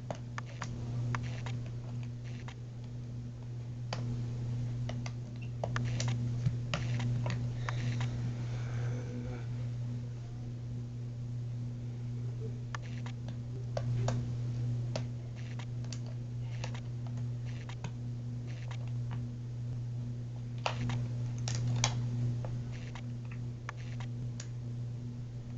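Irregular small metallic clicks and scrapes of a lock pick and tension wrench working the pins of a Sentry 1100 safe's key lock, over a steady low hum.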